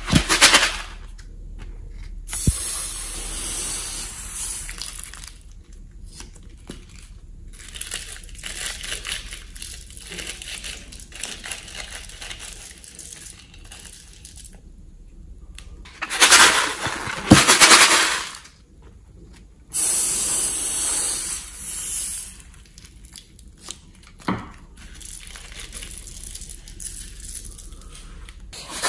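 Close-up handling sounds as star glitter and small sequins are shaken out of cut rubber balloons into a bowl of wet slime base: irregular rustling, crackling and pattering, with a couple of louder rustling stretches about halfway through and a few sharp clicks.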